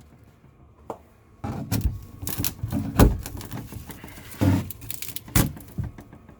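A run of irregular knocks and clattering with some scraping between them, the loudest knocks about three seconds in and again near the end.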